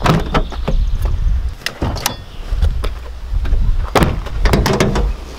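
Clicks and knocks of a Mitsubishi Lancer's door and hood release being worked to pop the hood. There are a few sharp knocks in the first second or two and a louder cluster of clunks about four seconds in, over a steady low rumble.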